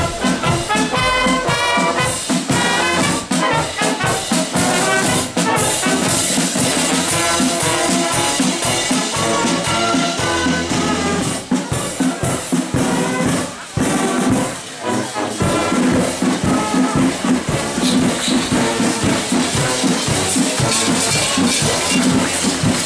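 Marching village brass band playing a tune, with clarinets, saxophones and brass horns together.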